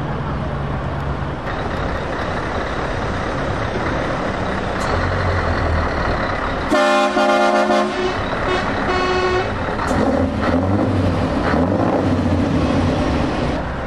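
Heavy trucks' diesel engines running as they drive off, with a truck horn sounding loudly for about a second midway, then a second, quieter blast right after it.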